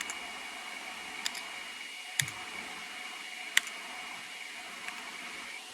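Shop machinery running steadily: the Fadal 3016L CNC vertical mill running its program, with the phase converter that powers it and a furnace, making a steady hum with a faint high whine. Three sharp clicks stand out about a second, two seconds and three and a half seconds in.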